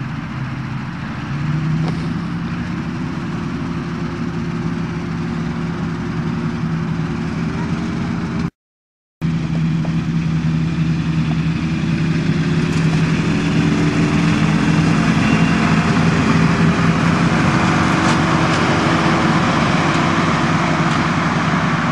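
Ford diesel truck engine idling steadily just after a tow-start, its first run after years of sitting. The sound drops out completely for a moment about eight and a half seconds in.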